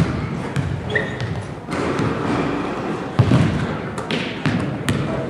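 Basketball bouncing and thudding on a gym floor, with a few sharp knocks, the loudest about three seconds in.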